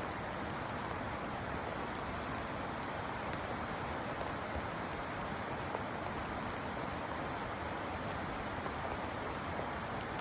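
Steady rain falling: an even hiss, with a few faint ticks of single drops.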